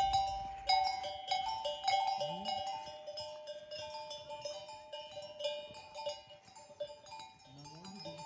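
Livestock bells clanking irregularly, many overlapping metallic strikes that ring on, as on a herd of grazing animals on the move.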